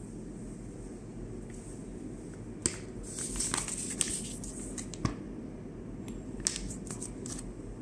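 Plastic vacuum food bag crinkling and crackling as it is flexed and opened in the hands, in scattered bursts, most of them about three to four seconds in and again near the end, over a steady low hum.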